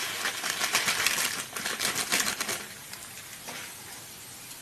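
Dry vermicelli poured into a pan of hot ghee, oil and onion, crackling and sizzling with a rapid run of clicks for about two and a half seconds, then settling to a softer, steady sizzle.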